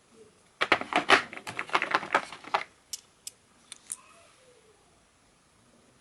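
Hex bit sockets and their hard plastic storage case being handled: a quick clattering run of sharp clicks for about two seconds, then four single clicks.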